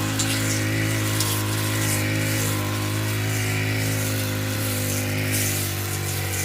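An engine running at a steady speed, with a constant low hum and its overtones throughout.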